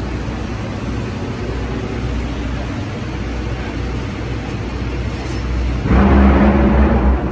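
Steady low engine rumble in the background, growing louder and harsher about six seconds in.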